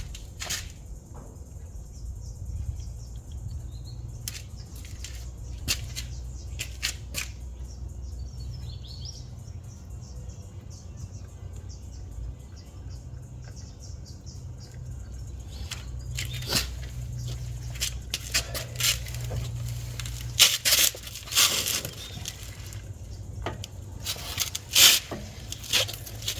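Gearbox oil draining from a BMW R100RS into a container, with scattered clicks and taps over a steady low hum. The noises come thicker and louder in the last ten seconds or so.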